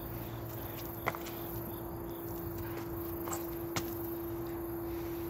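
Hands and sneakered feet landing on paving stones during burpees: a few short, sharp taps a second or two apart, over a steady hum.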